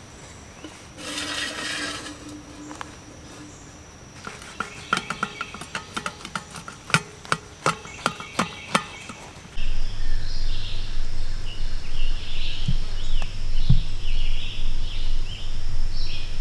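A knife crunching down through a baked biscuit's crisp crust on a wire rack, a quick series of sharp crackling clicks. Then, about ten seconds in, birds chirping over a steady low hum.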